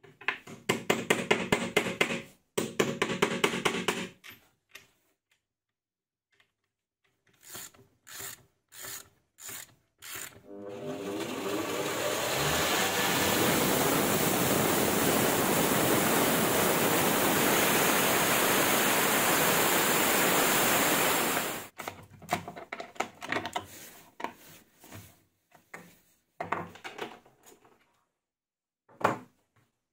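A homemade 2x48 belt grinder driven by a bench grinder motor spins up, then runs steadily for about ten seconds with a steel knife blank ground against the belt on the flat platen. Before it, there is a rapid run of hammer taps, and after it come scattered clicks and knocks from hand adjustment.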